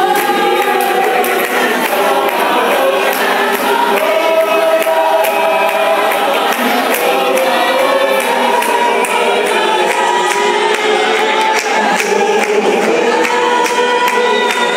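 Church choir singing a hymn in several voice parts, holding long sustained chords.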